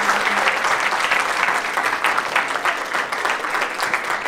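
Audience applauding, the clapping thinning out and getting quieter toward the end.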